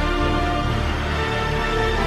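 Film score music: held tones over a steady low bass pulse.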